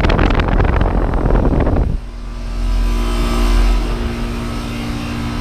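Goodman outdoor HVAC condensing unit running: a steady compressor hum with fan noise. For the first two seconds a loud fluttering rush, like air buffeting the microphone, covers it and then cuts off suddenly.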